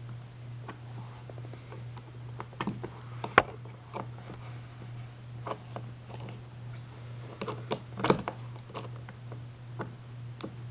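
Screwdriver tip clicking and scraping against the metal of a deadbolt lock cylinder while prying at its retaining clip: scattered sharp clicks, the loudest about three and a half seconds in and a cluster near eight seconds. A steady low hum runs underneath.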